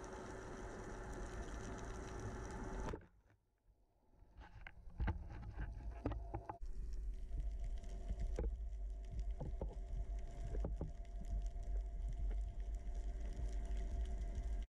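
Underwater sound through an action-camera housing: a steady hiss of moving water, then, after a brief dropout about three seconds in, a low rumble of water with scattered sharp clicks and knocks as a speared seabream is handled close to the camera.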